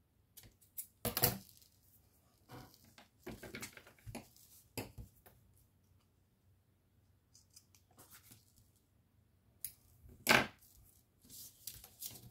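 Paper being handled in short, irregular rustles and tears, loudest about a second in and again about ten seconds in.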